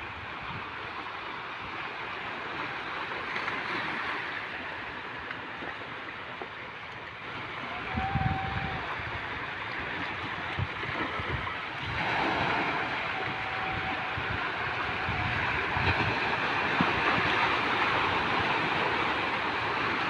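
Sea surf washing in, with wind buffeting the microphone, growing louder about halfway through. A few low thumps of wind gusts on the microphone.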